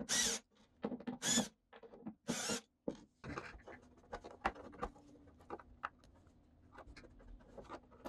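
A cordless drill-driver whirs in three short bursts over the first three seconds as it backs out the small screws of a panel-mount XLR connector. After that come faint clicks and scrapes of small screws and a hand screwdriver being handled.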